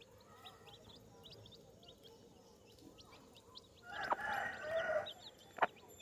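Baby chicks peeping: a steady stream of short, high-pitched chirps that slide downward. About four seconds in, a louder, lower call lasting about a second joins them, along with a couple of sharp clicks.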